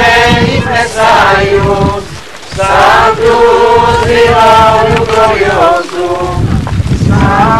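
Voices singing a slow, chant-like religious hymn in long held phrases, over a low rumble.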